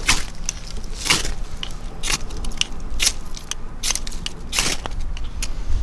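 Dry kindling twigs crackling and snapping: sharp snaps about once a second with fainter ticks in between.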